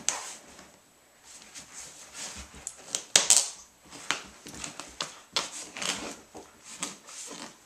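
A giant schnauzer puppy rooting through a fabric toy bin and a towel: irregular rustling, scraping and light knocks, loudest about three seconds in.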